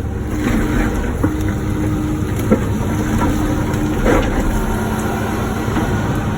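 Wacker Neuson ET145 excavator running steadily under work, with a steady whine that sets in about a second in and shifts pitch partway through, and a few sharp knocks.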